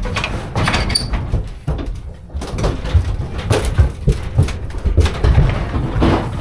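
A bull unloading from a livestock trailer: irregular clattering knocks and thumps of hooves and metal over a low rumble.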